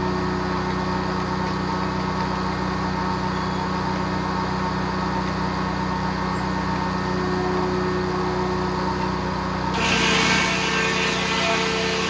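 Circle sawmill running with a steady mechanical drone from its drive and spinning blade. About ten seconds in, the sound suddenly turns brighter and noisier.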